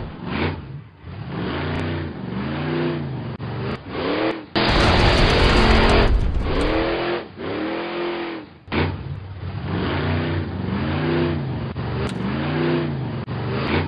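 Cartoon monster-truck engine sound effect revving up and falling back over and over in quick swells. A loud rushing noise lasts about a second and a half, around five seconds in.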